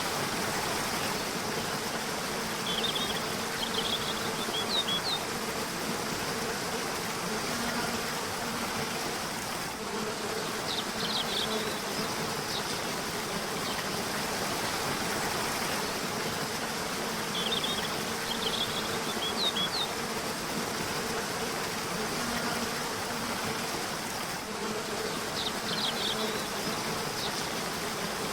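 River water rushing steadily, with a low buzzing hum that comes and goes. Small birds give short clusters of high chirps four times, about every seven or eight seconds.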